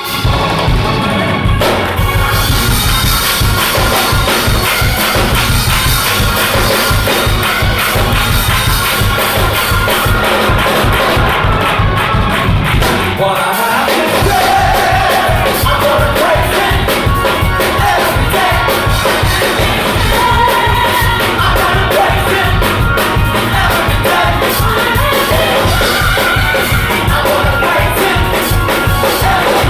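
Gospel music from a band and choir: a drum kit and bass keep a steady driving beat, with singing over it. The bass and drums drop out briefly about halfway through, then come back.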